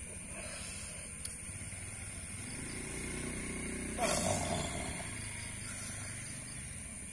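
A man in a trance groaning low and drawn out, swelling into a forceful breathy outburst about four seconds in, then dying away. A steady faint high whine runs underneath.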